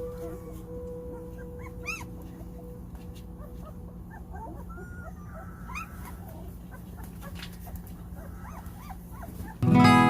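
German Shepherd puppies whimpering and squeaking in many short, high cries, some rising and falling. Acoustic guitar music comes in loudly near the end.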